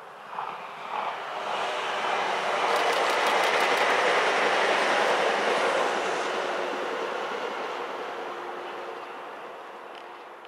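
Alstom ETR 564 electric multiple unit passing on the rail line, its wheel and rail rush swelling to a peak about three to five seconds in and then slowly fading, with a steady hum under it. There is a quick run of clicks from the wheels about three seconds in, and two brief blips about half a second apart near the start.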